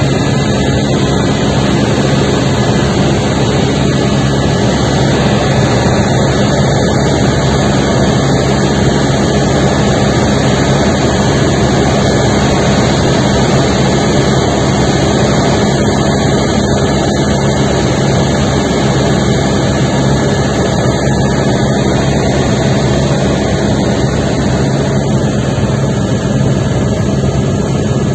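Helicopter in flight: a loud, steady turbine-and-rotor drone with a low hum that holds unchanged throughout.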